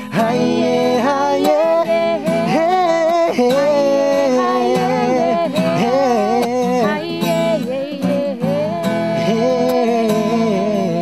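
Music: an acoustic guitar accompanying a wavering sung melody, with no words heard.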